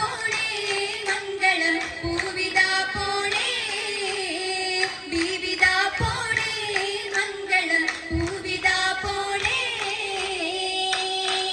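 Amplified female voices singing an oppana song, with a steady held note underneath and sharp hand claps from the dancers several times.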